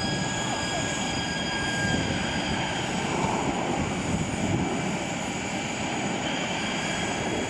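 Aircraft turbine noise running steadily: a broad rumble with several thin, steady high whining tones over it.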